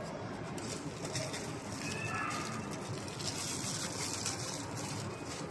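Faint rustling and handling noise of packaging and statue parts being moved, in short crackly patches about half a second in and again near the middle.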